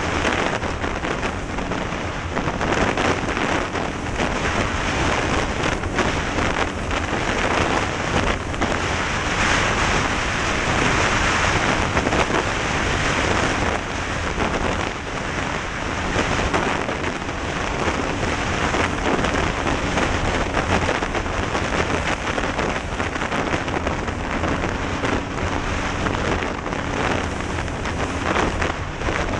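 Heavy wind rush over a helmet-mounted camera at riding speed, with an off-road vehicle's engine running steadily underneath.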